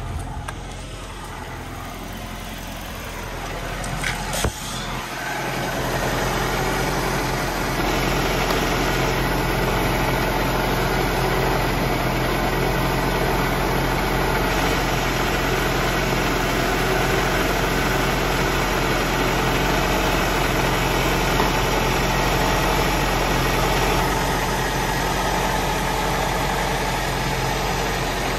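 A 1993 Saab 900 Turbo's turbocharged four-cylinder engine idling steadily, heard from beneath the car. It grows louder about five seconds in, and a couple of short knocks come just before.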